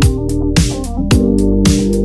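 Instrumental electronic dance music with a steady beat of kick and snare hits over bass and sustained synth chords.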